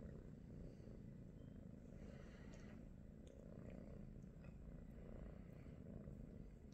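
Golden British Shorthair kitten purring softly. The low purr swells and fades every second or two, with a few faint ticks as it mouths a finger.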